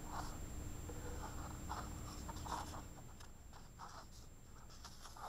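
Faint, brief rustling and scratching of paper, several times: hands handling the glossy pages of a picture book.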